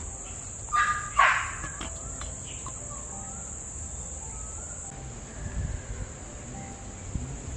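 Rural outdoor ambience: a steady high-pitched drone of insects such as crickets, with faint bird chirps. About a second in come two short, loud sounds.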